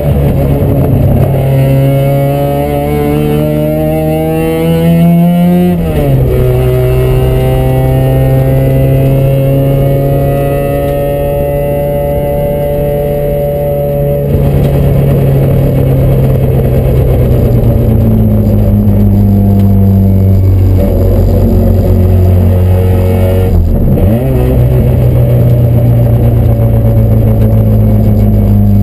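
Mazda RX-7's two-rotor rotary engine heard from inside the cabin at hard throttle. The pitch climbs for about six seconds and drops sharply at an upshift, then climbs slowly again. About halfway through the revs ease to a steadier level, broken by two brief dips in pitch later on.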